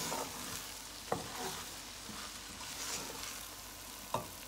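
Wooden spoon stirring rice and vegetables in a stainless steel pot, over a steady sizzle of the rice frying in oil. Two sharp knocks cut through, about a second in and near the end.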